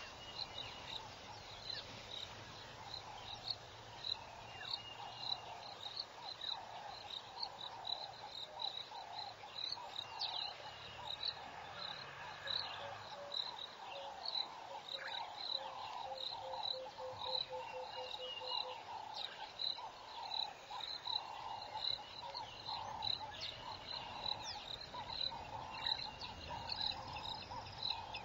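Dusk insect chorus: a high cricket chirp repeats about twice a second over a lower, dense pulsing chorus. In the middle a short run of low notes quickens, and a few brief high calls cut in.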